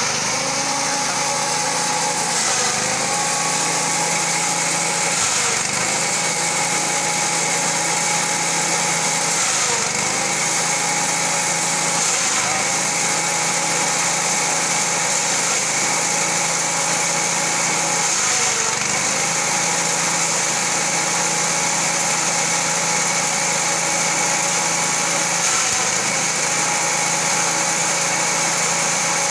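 An engine running steadily, its pitch dipping briefly and coming back every few seconds.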